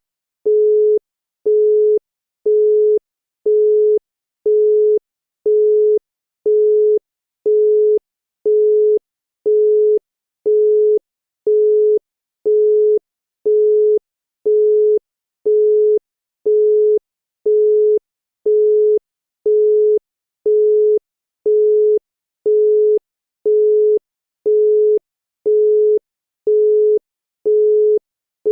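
Italian landline busy tone: a single steady tone of about 425 Hz beeping on and off at an even pace, a little faster than once a second. It signals that the call cannot go through and the caller should hang up.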